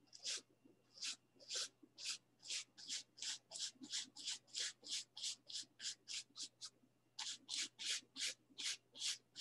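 Flat bristle brush lightly stroking wet oil paint on a canvas, a soft scratchy swish with each short stroke. The strokes come quicker and quicker to about three or four a second, with a brief pause about seven seconds in.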